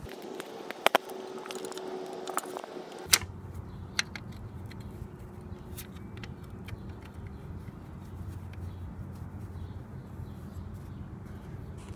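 Scattered sharp metallic clinks of a wrench knocking against the 42RE transmission's kickdown linkage while it is worked onto the lever's nut. The loudest clink comes about three seconds in.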